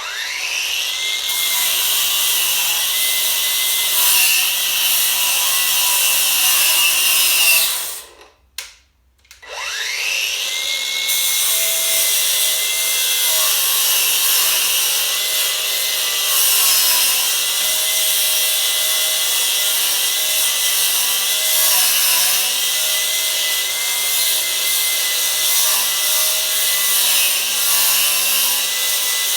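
Hypertough 20V cordless 4.5-inch angle grinder with a 60-grit flap disc grinding old paint off a stair railing. It spins up with a rising whine and runs for about eight seconds, stops briefly, then spins up again and keeps grinding.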